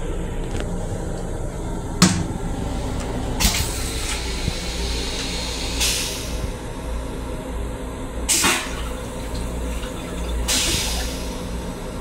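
Toilet on a Long Island Rail Road M7 railcar flushing into its stainless steel bowl. There is a sharp click about two seconds in, followed by four short hissing rushes of water a couple of seconds apart, all over the steady low rumble of the railcar.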